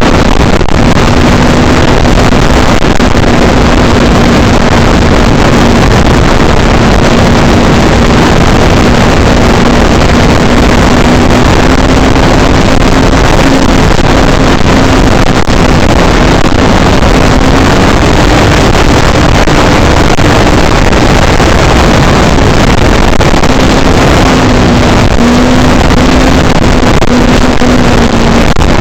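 Heavy wind buffeting the microphone, over the steady drone of an E-flite Draco RC bush plane's electric motor and propeller, its pitch shifting slightly up and down with the throttle.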